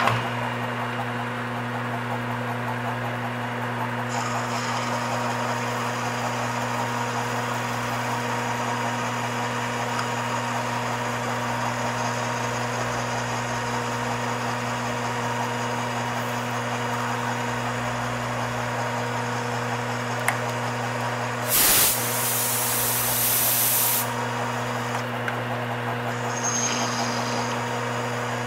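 Metal lathe running steadily while a wide high-speed-steel form tool cuts into a stainless steel part: a steady hum, with a faint high cutting tone coming in about four seconds in. Near the end, a loud hiss of coolant spray for about two seconds.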